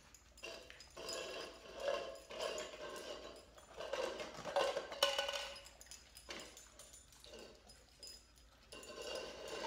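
Two dogs nosing and tipping upside-down plastic cups across a tile floor to get at treats hidden underneath: plastic scraping and knocking on the tiles in irregular bouts.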